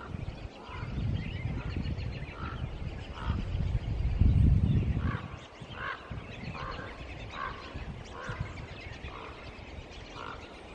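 A raven calling over and over, a series of short croaks repeated about every two-thirds of a second. Wind rumbles on the microphone in the first half, loudest about four to five seconds in.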